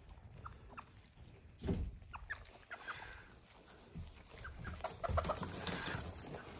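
Modern Game chickens clucking in scattered short clucks, with a dull thump about two seconds in.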